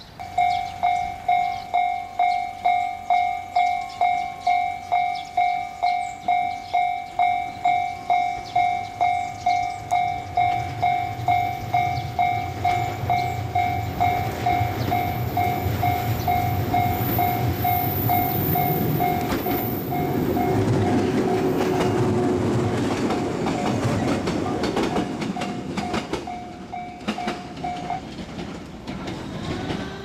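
Japanese level-crossing alarm ringing its electronic ding about twice a second while a yellow electric local train approaches and passes with a low rumble and wheel clatter. The alarm stops near the end as the crossing clears.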